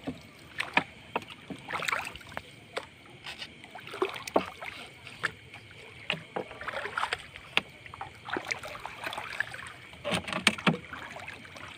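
Gill net with sardines being hauled by hand over the side of a small boat: water splashing and dripping off the mesh, with irregular knocks and taps against the hull, a cluster of them about ten seconds in.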